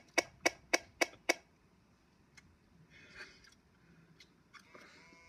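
A quick run of sharp clicks, about four a second, that stops about a second and a half in; then only faint low-level sounds, with a brief soft tone near the end.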